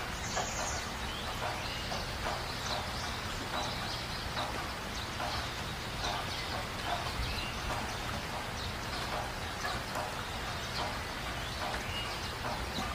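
Birds calling: many short calls repeating throughout over a steady background hiss.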